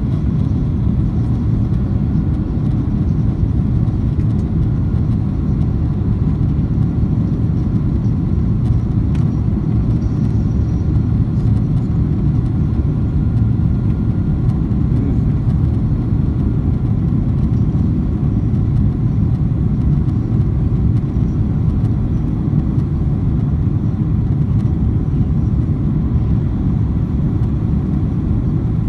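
Steady low rumble of a jet airliner's cabin, heard from a window seat beside the turbofan engine while the plane is on its low approach to land, with a faint steady whine above the rumble.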